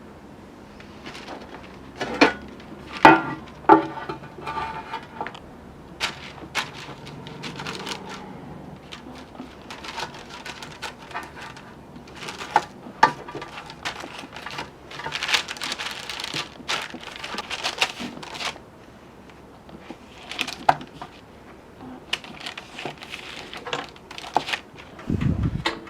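Irregular clicks, taps and rustling of hands handling baking tools and cookie dough, with a few sharper knocks.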